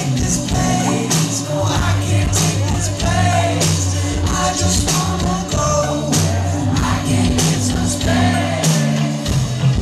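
Live indie-rock band playing a song in a club: sustained bass notes, drum and cymbal hits, guitar and keyboards, with a male voice singing over it.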